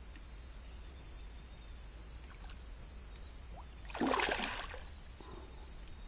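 Cicadas singing in a steady high chorus. About four seconds in, a hooked trout splashes once at the surface.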